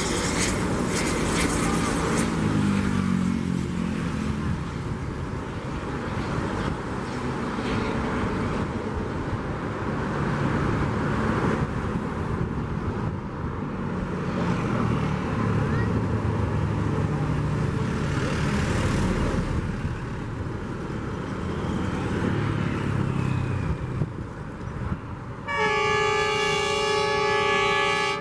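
DF4B diesel-electric locomotive approaching slowly, its diesel engine running with a low note that rises and falls with the throttle. Near the end it gives one long horn blast of a few steady tones.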